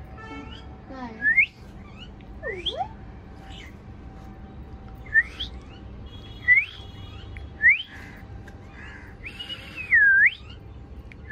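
A bird calling in a series of loud whistled notes, each sweeping upward in pitch, about six of them spaced a second or more apart. The last note is longer, dipping and then rising.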